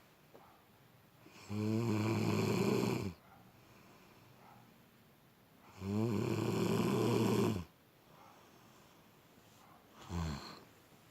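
Snoring: two long, loud snores about four seconds apart, then a shorter, weaker one near the end.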